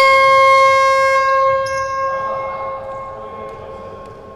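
Basketball scoreboard horn giving one long, loud, steady tone, then fading away over about two seconds.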